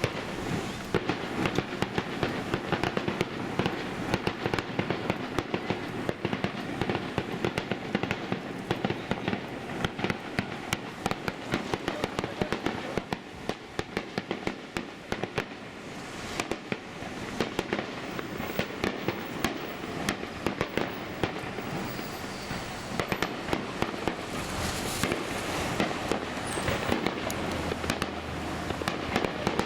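Fireworks going off: a dense, continuous run of sharp pops and cracks.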